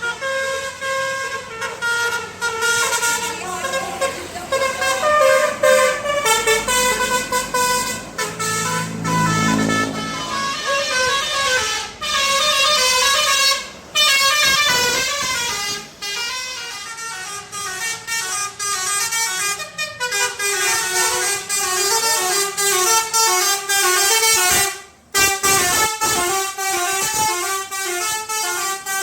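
Indonesian 'telolet' bus horn, a multi-tone air horn, playing a fast run of changing notes over and over, with a few short breaks. A low rumble of a bus engine rises about nine to ten seconds in.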